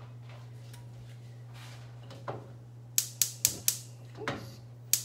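Gas stove burner's spark igniter clicking: four sharp clicks, about four a second, about three seconds in, over a steady low hum.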